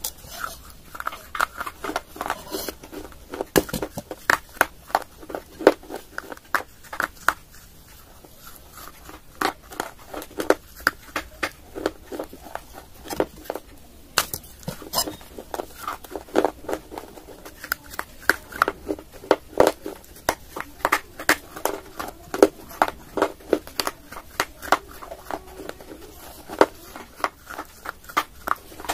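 Close-up crunching of a clay pot being bitten and chewed: a quick, irregular run of sharp, brittle crunches, one or two a second.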